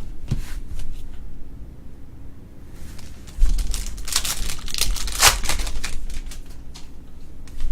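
Trading cards and their plastic packaging being handled: crinkling and rustling with light clicks, busiest in the middle, and a low bump on the table about three and a half seconds in.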